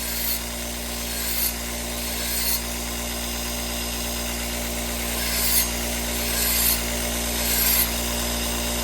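Steel knife blade pressed against a running powered grinder, the motor humming steadily while six short scraping strokes of the blade against the abrasive come in two groups of three, about a second apart. The spine is being ground back to re-form a broken tip.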